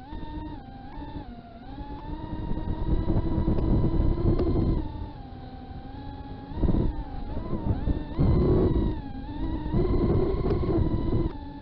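Small FPV quadcopter's brushless motors whining, the pitch shifting with throttle. Several louder surges come as the throttle is punched.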